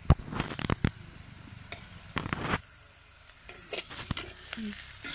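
A spoon stirring and scraping chopped cabbage frying in oil in a clay pot: a quick run of clicks and knocks in the first second, then further scraping strokes.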